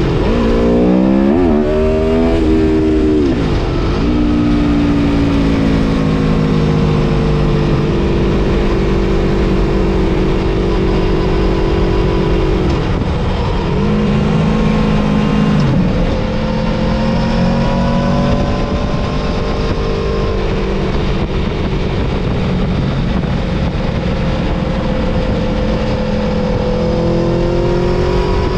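Aprilia Tuono V4 Factory's V4 engine at race pace on track. About a second in, the revs climb through quick upshifts, then drop sharply for braking. After that the engine holds high revs, with short drops twice in the middle.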